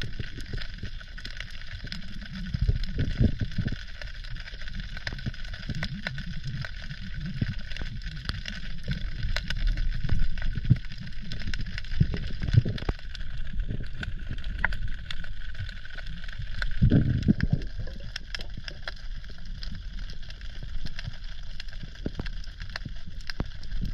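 Underwater ambience picked up through a camera housing: a steady crackle of fine clicks over muffled low rumbling, with dull thuds and swells from water movement and handling a few times.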